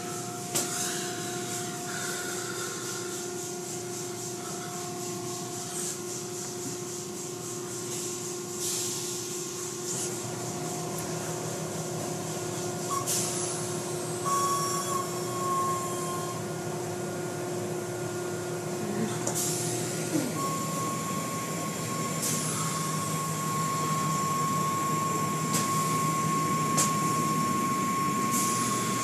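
Car wash machinery running: a steady motor whine over a constant hiss, the whine changing to a higher steady tone about two-thirds of the way through.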